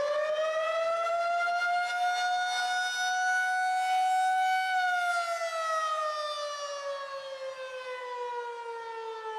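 Outdoor civil-defence siren sounding a tornado warning. It is one loud tone with several overtones whose pitch climbs over the first couple of seconds and holds high. From about halfway it slides slowly down, and it begins to climb again at the very end.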